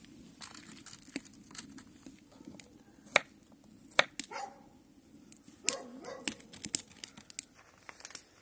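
Kitchen knife cutting garlic cloves on a wooden chopping board: sharp, irregular taps of the blade on the wood.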